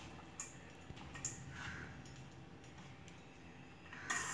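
Faint taps and clicks of a metal spoon against a stainless steel bowl while cooked rice is mixed, with a louder scrape of the spoon on the bowl near the end.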